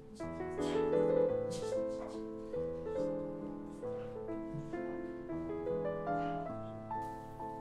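Background piano music: a gentle melody of changing notes over sustained chords.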